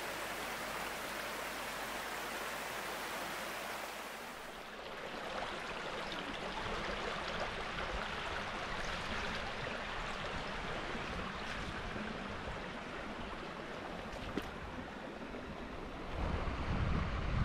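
Small brook's water rushing steadily. Near the end, wind buffets the microphone with a low rumble.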